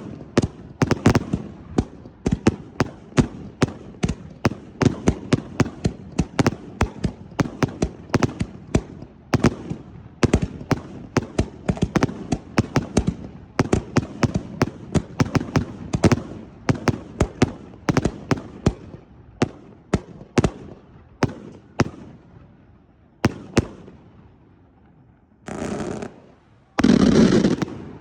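Fireworks display: a rapid barrage of sharp bangs, several a second, that thins out after about twenty seconds to a few last scattered bangs. Two short rushes of noise follow near the end.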